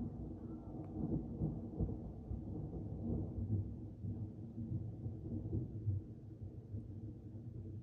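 Thunder rumbling: a long, low, uneven roll that swells and eases and dies away near the end.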